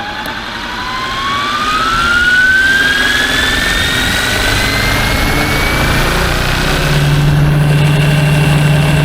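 Fly-Wing MH-60R SeaHawk RC helicopter spooling up: the whine of its electric motor rises steadily in pitch as the rotors come up to speed. A steady low hum sets in near the end as the rotors settle at speed.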